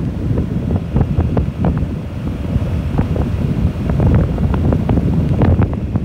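Heavy wind buffeting the microphone of a moving open vehicle: a loud, low, rough rumble with frequent crackling gusts.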